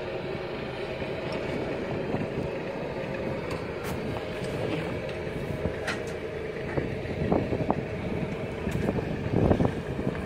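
A motorboat's engine running steadily as the boat moves over open sea. Gusty low rumbles of wind on the microphone come in over the last few seconds.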